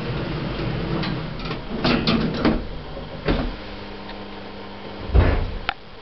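Hydraulic passenger lift's stainless sliding doors clattering, with several sharp knocks in the first half. A steady hum sets in, then a heavy thump and a click come near the end.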